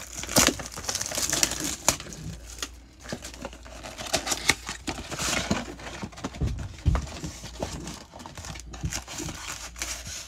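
Plastic shrink wrap being torn and crinkled off a cardboard trading card box, with irregular rustles and small clicks of the cardboard being handled.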